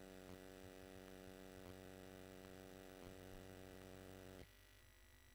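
Near silence with a faint steady hum made of several even tones, which drops away about four and a half seconds in.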